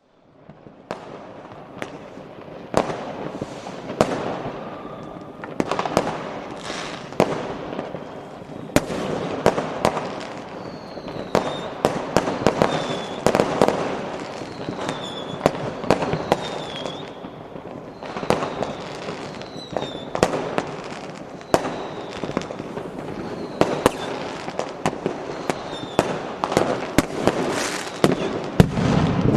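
Large fireworks display with firecrackers: a continuous crackle under frequent sharp bangs, and now and then a short falling whistle.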